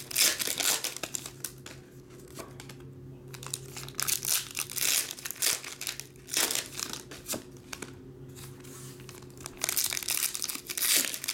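Plastic trading-card pack wrappers being torn open and crinkled in bursts, at the start, in the middle and again near the end, over a faint steady low hum.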